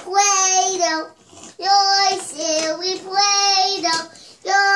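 A young child singing long, held notes without clear words, in about five phrases of roughly a second each, each one dropping in pitch at its end.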